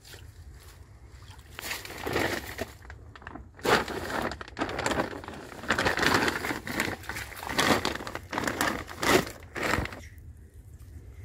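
Plastic bag rustling and crinkling in irregular bursts as a tilapia is handled into it, with dry reeds crackling underneath.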